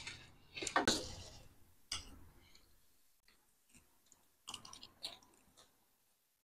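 A person chewing crisp street snacks close to the microphone: short bursts of chewing in the first couple of seconds, a pause, then another short run of chewing about five seconds in.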